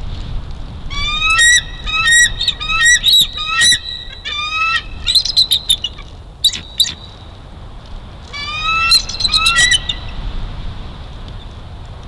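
Bald eagle calling: quick runs of high, piping chattering notes. There is a long bout through the first half, a short one just past the middle, and another a couple of seconds before the end.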